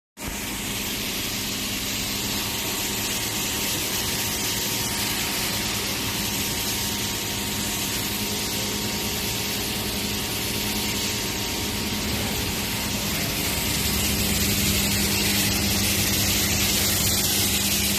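High-pressure car wash pump running with water spraying steadily, growing a little louder for the last few seconds.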